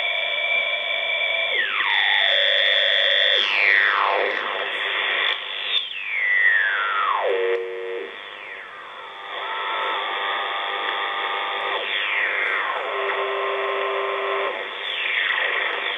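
AEG Telefunken E800/2 shortwave receiver's loudspeaker while its tuning knob is turned across the bands. Whistling tones repeatedly fall in pitch as carriers sweep past, with steady beat tones and clusters of held tones from stations in between, over a bed of band noise.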